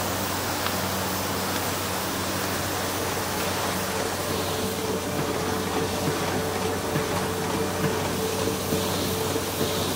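Varnishing machine running in production: a steady whirr of its conveyor belt, rollers and blower, with a constant low hum and a mid-pitched tone that grows stronger about halfway through. Faint light ticks come through in the second half.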